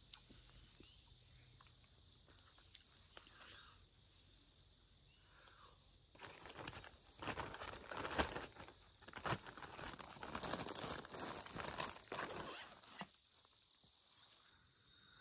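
Plastic bag crinkling and rustling as it is handled and pushed into a backpack, starting about six seconds in and stopping shortly before the end.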